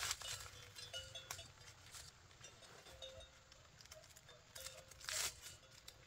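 Dry corn husks rustling and crackling as an ear of field corn is husked by hand, with a louder tearing rip about five seconds in.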